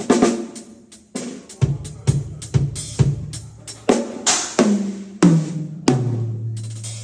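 Drum kit being sound-checked with single, unevenly spaced hits, about a dozen strikes. The later hits are toms ringing at lower and lower pitch, and the last, lowest one rings on for about a second.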